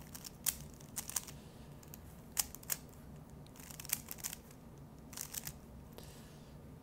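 Moyu AoLong V2 speedcube being turned by hand: irregular sharp plastic clicks of the layers snapping round, single turns and short quick runs of turns, over a faint steady low hum.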